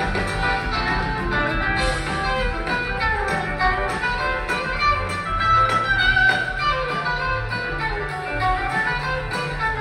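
Live rock band playing an instrumental passage, with electric guitars leading over bass, drums and keyboards.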